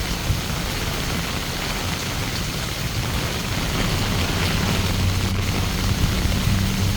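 Steady rain falling and pattering on surfaces. About halfway through, a low steady hum joins in under the rain.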